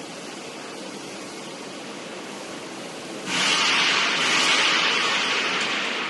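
Drum wood chipper running with a steady rushing noise, then, about three seconds in, a sudden much louder hiss as material goes through the drum and chips stream out of the discharge.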